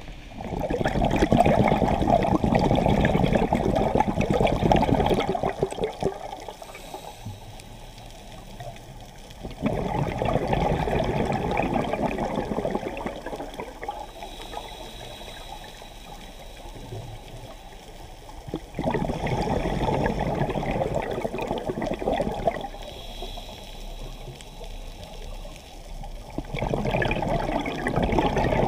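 Scuba diver breathing through a regulator underwater: four long rushes of exhaled bubbles, roughly every nine seconds, with a fainter hiss of inhalation between them.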